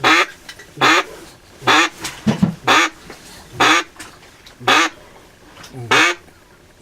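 Loud duck quacks, seven single quacks spaced roughly a second apart, each dropping in pitch, with a fainter extra quack about halfway through.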